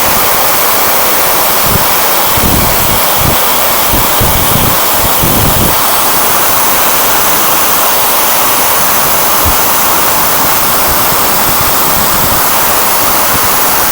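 Handheld hair dryer running steadily on its hot, high setting, a loud even rushing of air, with a few brief low rumbles of airflow buffeting the microphone between about two and six seconds in.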